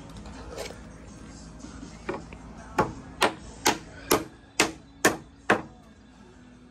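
Nails being driven into wood roof framing: a run of about seven sharp strikes, about two a second, after a lighter knock a couple of seconds in.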